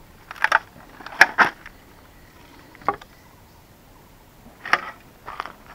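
A handful of short, sharp knocks or clacks at irregular intervals, the loudest about a second in.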